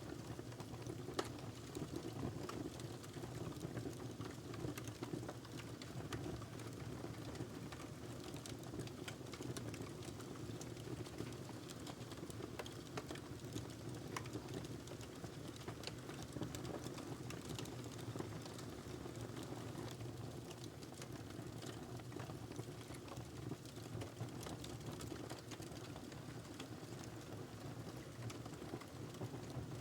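Wood fire burning in a fireplace: a steady low rumble and hiss of flames with frequent irregular crackles and pops.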